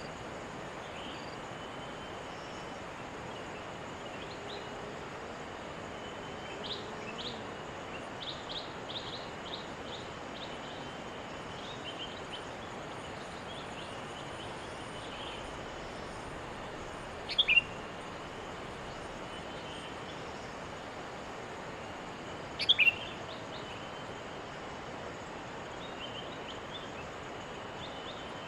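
Sooty-headed bulbul (kutilang) chirping over a steady background hiss: scattered short chirps, a quick run of them a quarter of the way in, and two louder calls about five seconds apart in the second half.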